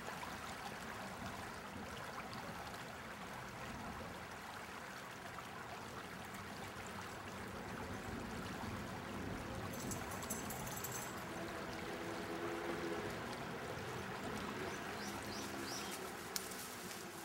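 Steady rush of flowing water from a shallow stream in a concrete-lined channel, with a few short high chirps near the end.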